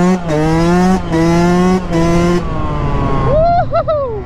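Yamaha YZ125 125cc single-cylinder two-stroke, with a plain exhaust and no turbo whistle, accelerating hard through the gears. Its pitch climbs and drops briefly at each of three upshifts, then it comes off the throttle about two and a half seconds in. Near the end come a few quick throttle blips.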